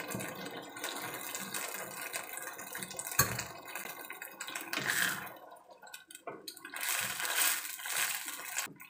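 A little water poured from a small bowl into a steel wok of simmering sardine gravy, then the gravy stirred with a wooden spatula, with a sharp click about three seconds in.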